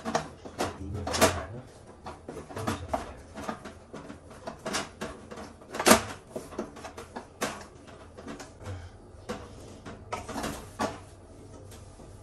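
A wooden stick knocks and scrapes against a frying pan as thick dhindo dough is stirred. The knocks are irregular, with the loudest about six seconds in.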